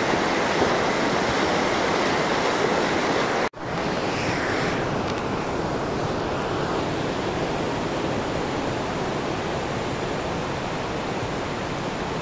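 Muddy river in flood, a steady, loud rush of fast water. It breaks off for an instant about three and a half seconds in, then goes on a little softer.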